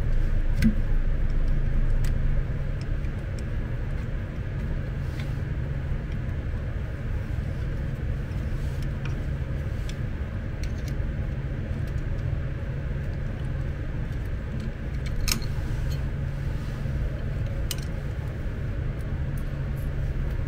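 Scattered light clicks and clinks of a hand wrench with an extension working on metal screws at a power wheelchair's motor-gearbox mount, over a steady low hum.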